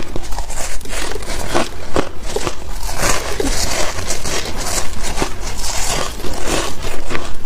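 Close-up crunching of soft freezer frost: a dense, irregular run of sharp little crackles and crunches with no pause.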